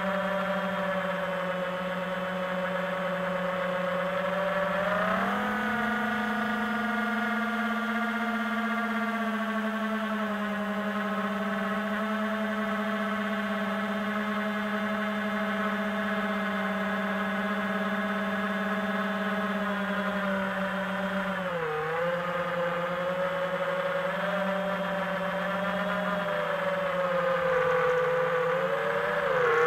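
Homebuilt FPV quadcopter's four brushless motors (T-Motor Velox 2306, 2400 kV, on a 4S battery) whining steadily in flight. The pitch steps up about five seconds in, dips briefly a little past twenty seconds and wavers again near the end as the throttle changes.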